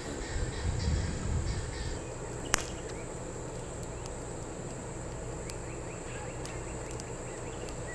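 Insects droning in a steady high-pitched chorus, with a low rumble during the first two seconds and a single sharp click about two and a half seconds in.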